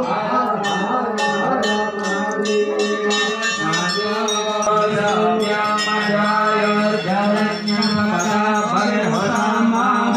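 Hindu temple bells struck again and again, most thickly in the first few seconds, over chanted mantras and devotional music with a steady low drone.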